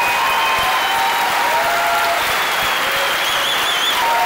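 Large audience clapping steadily and continuously. A few long high calls or whistles rise above the clapping, one wavering near the end.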